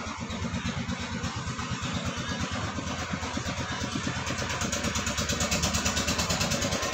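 A small engine running with a steady, rapid putter that grows gradually louder.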